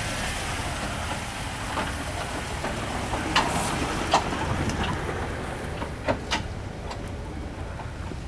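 Off-road Jeep's engine running at low speed while crawling over rock, with a few sharp knocks: the loudest two about three and four seconds in, two more about six seconds in.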